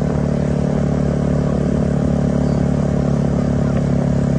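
A vehicle engine idling steadily at constant speed.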